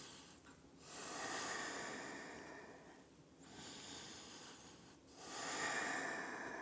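Slow, deep yoga breathing close to the microphone: three long breaths, each a soft hiss lasting one to two seconds, with short pauses between.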